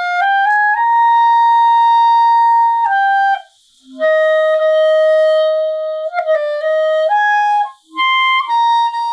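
Clarinet playing a short run of sustained notes, stepping up and down in pitch, with a stretch of quick flickering between pitches about two thirds in. The faulty playing is caused by an out-of-adjustment bridge key, the link between the upper and lower joint keys.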